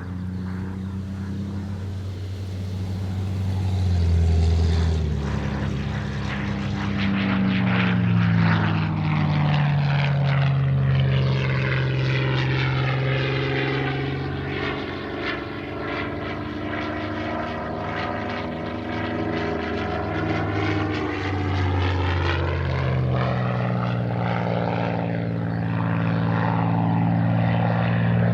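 Piston-engined World War II fighter flying low display passes, its propeller engine running loud and steady. The engine note drops in pitch as it goes past a few seconds in, and rises again near the end as it comes back around.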